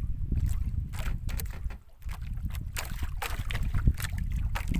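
Wind rumbling on the microphone, dropping out briefly about two seconds in, with a run of small clicks and taps as hands twist and fit a small green LED squid-fishing light against bamboo slats.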